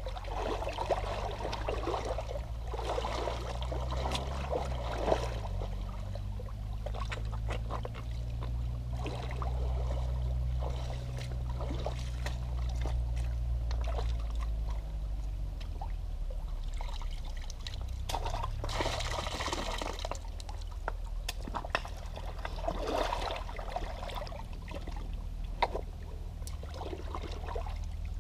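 Skate shoes wading and shuffling in a shallow creek: water sloshing and splashing around the feet over the stream's steady trickle, with a louder splash about two-thirds of the way through.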